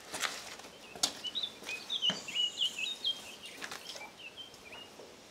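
A songbird singing a quick warbling phrase of short chirping notes that jump up and down in pitch. A few sharp clicks come with it near the start and about two seconds in.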